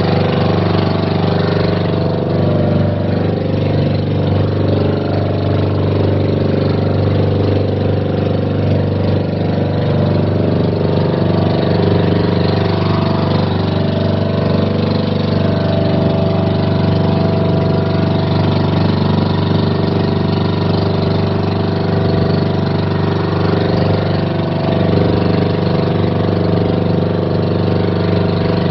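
Motorized outrigger boat (bangka) engine running steadily under way, an unbroken even drone.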